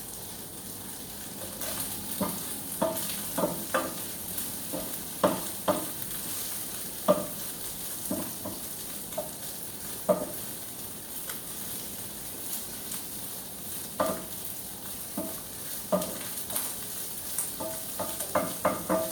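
Oil sizzling steadily as marinated milkfish deep-fries in a pan, with irregular clinks and scrapes of a utensil against the pan as the fish is turned.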